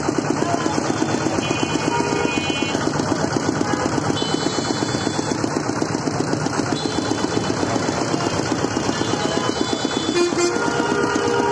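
Small stationary engine driving a sugarcane juice crusher, running steadily with a fast, even beat while cane is fed through the rollers. Vehicle horns honk briefly several times over it.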